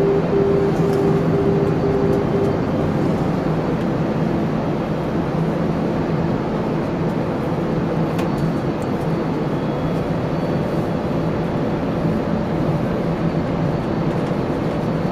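Steady rushing airflow and engine noise on an Airbus A380 flight deck on approach, with a low steady hum underneath. A repeating beep, about two a second, sounds over it and stops after about two and a half seconds.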